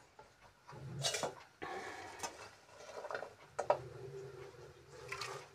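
Kachnar flower buds being handled and dropped by the handful into an aluminium pressure cooker holding water: rustling, light splashes, and a few clinks and knocks against the metal.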